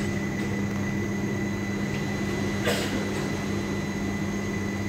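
Steady electrical hum and whine of an idling ATM, with one brief swish about three seconds in.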